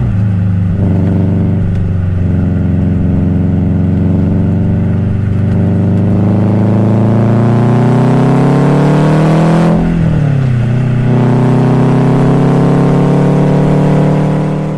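Subaru WRX STI's turbocharged flat-four boxer engine pulling under acceleration, its pitch climbing steadily. About ten seconds in the pitch drops sharply at a gear change, then climbs again.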